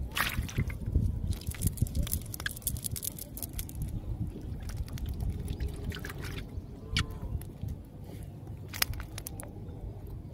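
Wet handling noises: a hand working through a fine mesh fishing net on muddy ground, with scattered rustles, squelches and small drips.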